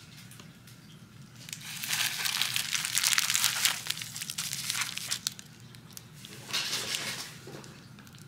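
Plastic wrapping crinkling as bagged jars of glitter are handled and set down. It is loudest from about two to five seconds in, with a shorter spell of crinkling about six and a half seconds in.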